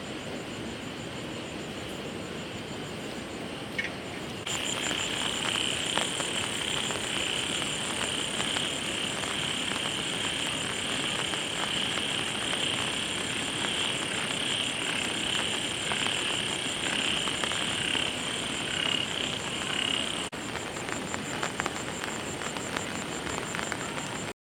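Frogs and insects calling together in a steady chorus over a background hiss, with a high pulsing trill throughout. It gets louder about four seconds in.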